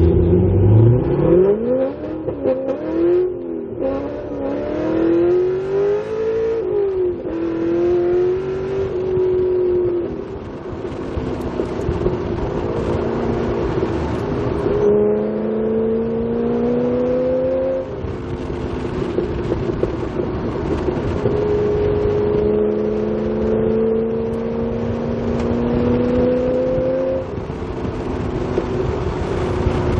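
Corvette Z06 V8 running through an AWE axle-back exhaust while driving. The engine note climbs steeply at the start, then rises gently in long pulls. Three times, a pull ends with a drop in pitch as the revs fall, suddenly near the end.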